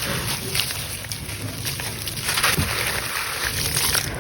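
Grainy sand-cement crumbling into water in a clay pot: a continuous wet sloshing with many small crackles and splashes.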